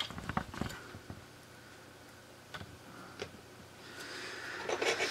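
Quiet room with a few faint small clicks and light taps, several in the first second and a couple more around the middle. A soft hiss rises near the end.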